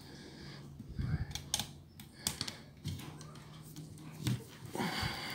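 Light irregular clicks and taps of a thin wire hook and fingertips on the plastic-and-metal tape mechanism of a Philips VR355 VCR, as a small spring is worked into place.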